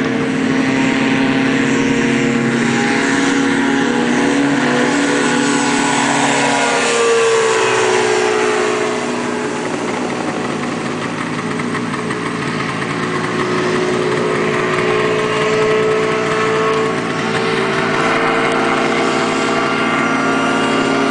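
Dominator gyroplane's Rotax engine and pusher propeller running steadily during a fly-by, the engine pitch gliding down about seven seconds in as it passes.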